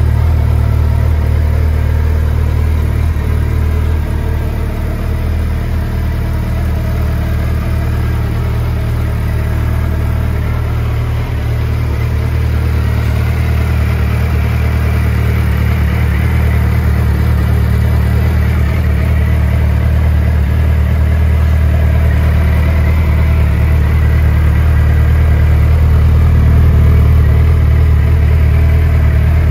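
Suzuki GSX1300R Hayabusa's inline-four engine idling steadily through Yoshimura aftermarket exhausts.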